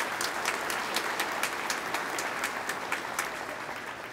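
Audience applauding, with many individual claps; the applause dies away toward the end.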